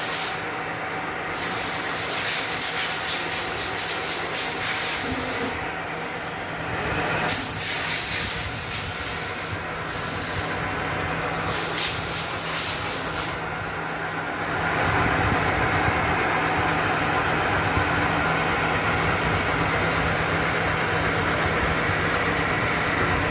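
Metal lathe running with a steady motor hum and a hiss over it; the sound grows louder and hissier about two-thirds of the way through.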